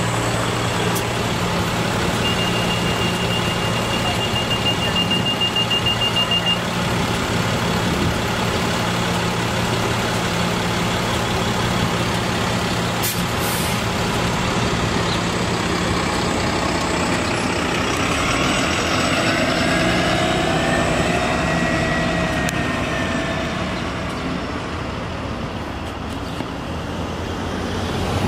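2021 Nova Bus LFS hybrid-electric city bus running at the curb with a steady low hum, and a rapid high beeping for about four seconds near the start. Later it pulls away, and a whine rises in pitch as it accelerates, then fades.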